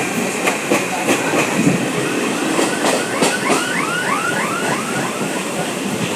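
Passenger train running along the track, its wheels clattering over rail joints in regular clicks over a steady rumble. From about three seconds in, a run of about eight quick rising-and-falling chirps sounds over it.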